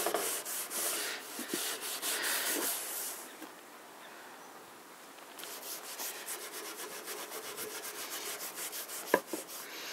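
Steel wool scrubbing pale boiled linseed oil into an old timber tabletop in fast back-and-forth strokes. The rubbing stops about three and a half seconds in and picks up again about two seconds later, with a small knock near the end.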